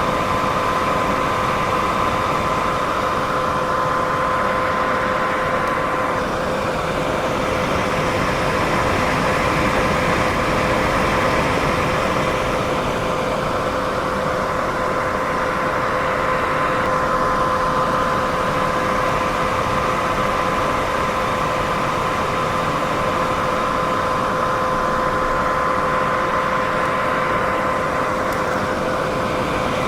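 Continuous white noise for sleep: a steady hiss, fullest in the middle range, with two faint steady tones running through it and slow, gentle swells in the higher hiss.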